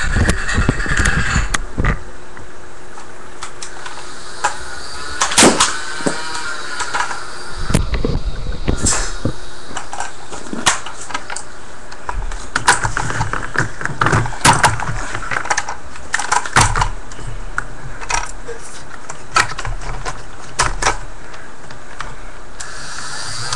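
Battery-powered flywheel motors of a clip-modded Nerf Barricade blaster running, with scattered sharp clicks and knocks as darts are shot and the blaster is handled.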